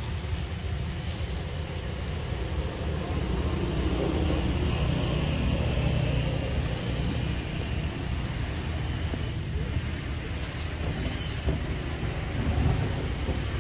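Steady low outdoor rumble, with short high chirps about a second in, near seven seconds and near eleven seconds.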